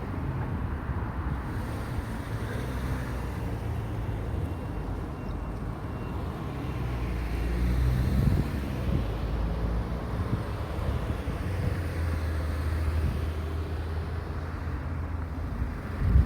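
Road traffic: cars driving past at an intersection, a steady low rumble with one vehicle passing closer about eight seconds in.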